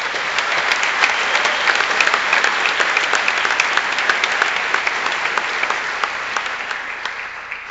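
Large audience applauding, swelling in at the start and dying away near the end.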